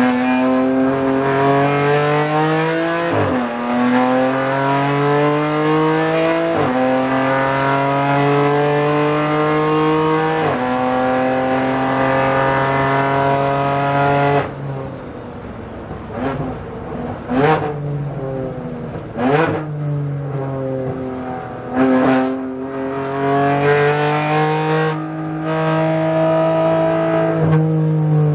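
BMW M4 GT4 race car's twin-turbo straight-six heard from inside the cockpit, pulling hard up through the gears with a sharp drop in pitch at each of three upshifts. About halfway through it lifts off for heavy braking, with four quick rising throttle blips on the downshifts, then the engine note climbs again as it accelerates out of the corner.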